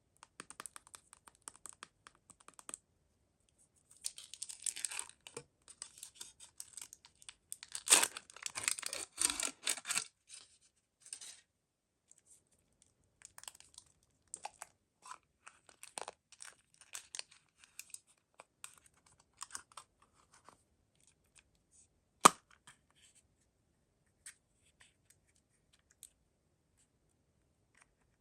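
Toy packaging being torn open by hand and crinkled, in a dense stretch of tearing and rustling. This is followed by scattered small rustles and clicks as the contents are handled, and one sharp click late on.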